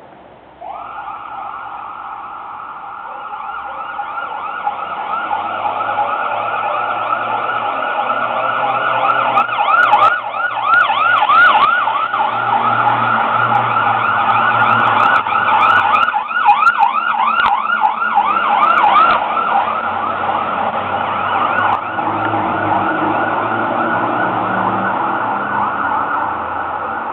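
Fire truck siren on an emergency run. It starts with a rising wind-up about a second in, then switches to a fast yelp of about four rising-and-falling sweeps a second. It grows louder toward the middle and eases off somewhat near the end.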